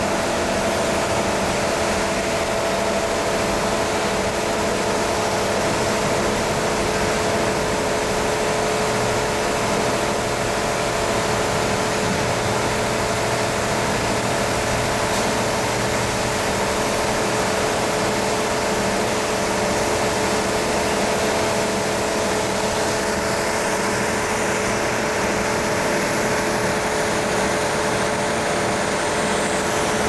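Automatic car washing machine running: a steady mechanical hum over a continuous hiss.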